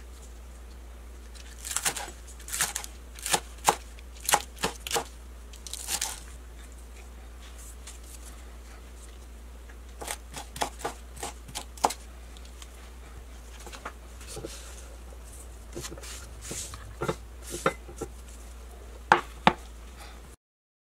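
A knife chopping green vegetable strips on a wooden cutting board: irregular runs of sharp knocks, over a steady low hum. Two louder knocks come near the end, and the sound cuts off abruptly just before the end.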